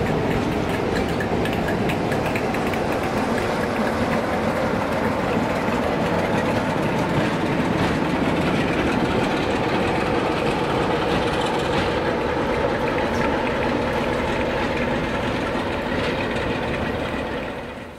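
Heritage diesel locomotive running with its train, a steady engine drone mixed with wheel-on-rail noise, easing off slightly and cutting off abruptly at the very end.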